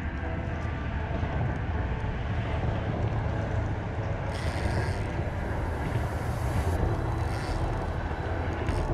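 Wind rumbling on the microphone, a steady low noise, with two short hissing bursts about four and seven seconds in.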